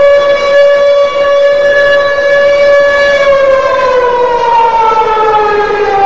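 Chicago Wolves' arena goal horn sounding one long, loud blast. The pitch holds steady, then from about halfway through it slowly sinks as the horn winds down.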